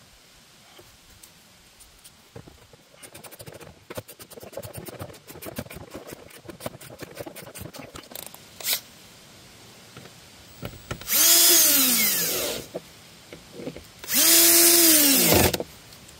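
Quick run of clicking, then two short bursts of a cordless drill/driver spinning and winding down as the trigger is let go: screws being driven to fasten a plastic mud guard to the wheel arch.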